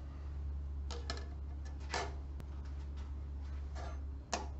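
A steel square and pencil being handled and set down on a wooden workbench: a few light clicks and knocks, the sharpest near the end, over a steady low hum.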